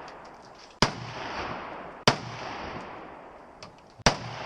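Three gunshots, fired about 1.3 and 2 seconds apart, each followed by a long echoing tail.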